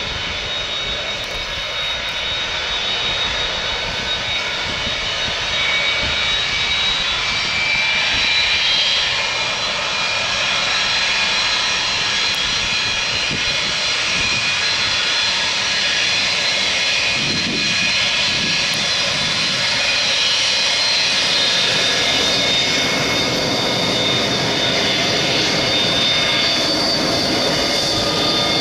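Boeing 727-200 freighter's three Pratt & Whitney JT8D turbofan engines running at taxi power: steady jet engine noise with high whining tones, getting a little louder about six seconds in.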